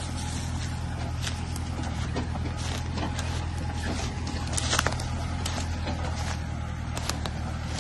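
Small tractor's engine running steadily as it tows a loaded two-wheel trailer over a dirt forest track, with irregular knocks and rattles over the hum, the loudest a little after halfway.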